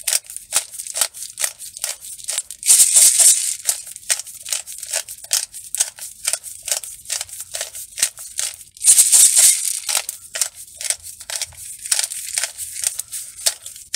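Hand pepper grinder being twisted over and over, crunching whole black peppercorns in quick rhythmic strokes of about three a second. There are two longer, steadier grinds, about three seconds in and about nine seconds in.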